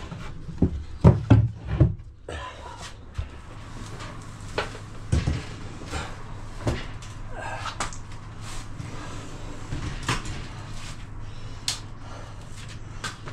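Knocks and bumps of chipboard cabinet panels and a built-in wall oven being handled and set down onto a chipboard pedestal box. A tight cluster of loud knocks comes about a second in, then single knocks at intervals.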